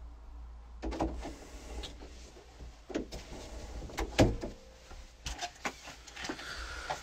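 A series of knocks and thumps with rustling between them, the loudest a little after four seconds in: objects being handled and moved about.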